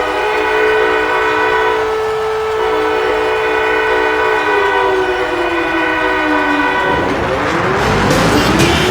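Goal-horn mix led by a warning siren: a steady, loud chord of several pitched tones holds, then winds down in pitch from about four and a half seconds in. About seven seconds in a loud rushing roar comes up and the siren starts winding up again.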